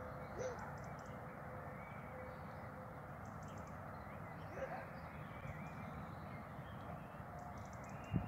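Outdoor ambience: a steady rumble of distant road traffic with scattered bird calls over it, and one short knock near the end.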